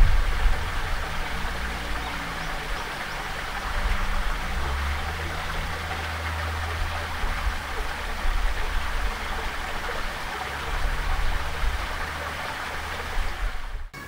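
Steady outdoor background noise: an even hiss with a low engine hum, like distant road traffic, that swells and fades several times.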